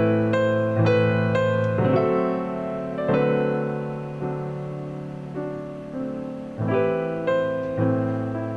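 Background music: a gentle piano tune, notes and chords struck and left to ring away.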